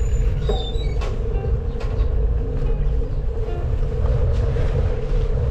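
Road rumble and wind buffeting on the action camera's microphone as a gravel bike rolls along a concrete street, with a steady hum and a few sharp rattling clicks.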